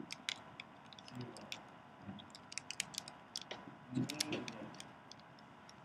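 Dry-erase marker writing on a whiteboard: a quick, irregular run of sharp ticks and short squeaks as the tip strikes and drags across the board.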